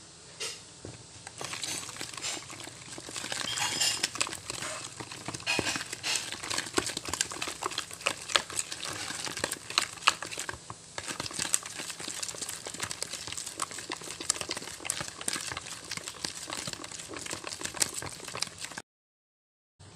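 Spatula stirring beaten egg into creamed butter and sugar in a mixing bowl: a steady run of wet squelching and scraping with irregular small clicks as the soft dough is worked. It cuts to silence about a second before the end.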